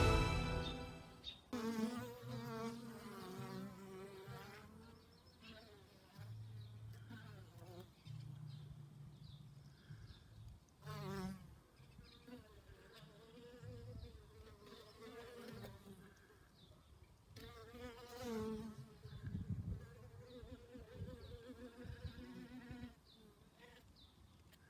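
Honey bees buzzing in flight, several at once, the hum wavering in pitch and swelling now and then as a bee passes close.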